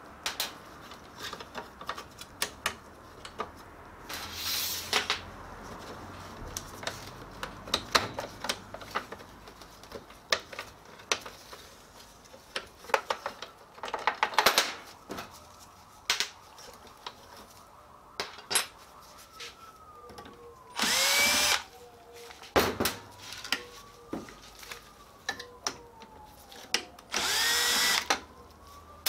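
Cordless drill/driver running in short bursts of about a second to back screws out of a copier touch-panel unit's plastic housing. Sharp clicks and clatter of plastic and metal parts being handled come in between.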